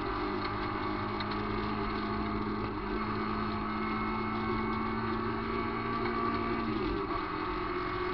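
VW Gol rally car's engine running hard at steady high revs, heard from inside the cabin, over tyre and gravel noise from the dirt road. The steady engine note changes about seven seconds in.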